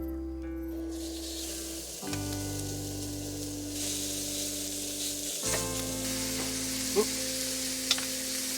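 Meat sizzling in a hot pan, a steady frying hiss, with two light clicks near the end.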